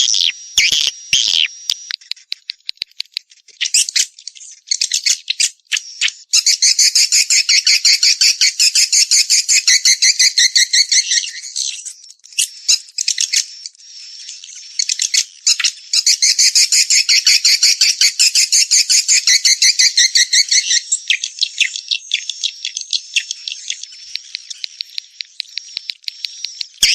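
Swiftlet calls: rapid high-pitched clicking, twice swelling into long dense chattering trills of several seconds each. A swiftlet call track of the kind played to lure swiftlets to nesting houses.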